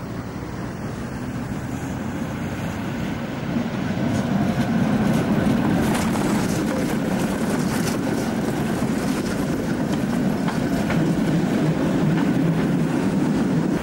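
An articulated Tatra tram passing close by on its rails, a steady rumble with clicks from the wheels on the track. It grows louder about four seconds in as the tram draws level.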